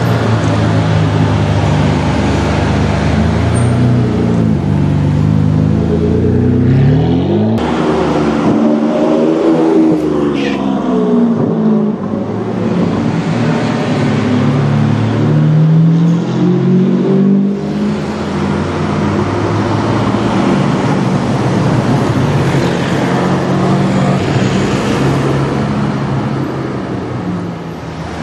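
Ferrari 599's V12 engine revving and accelerating, its pitch climbing and falling in repeated pulls. The sound breaks off abruptly twice, about a quarter and about two-thirds of the way through, where separate takes are joined.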